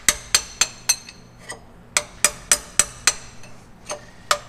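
Hammer blows ringing on steel, driving out a worn S-cam bushing on a truck's air-brake assembly. The strikes come about three or four a second in short runs of four or five, with brief pauses between runs.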